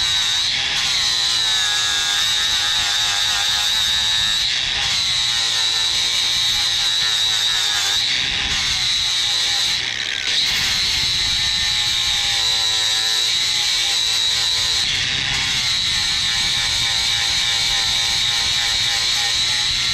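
Electric angle grinder with an abrasive disc grinding down the steel of an N54 turbocharger's turbine housing around the wastegate bushing, smoothing it flush. A steady high whine with a grinding rasp, easing off briefly about halfway through.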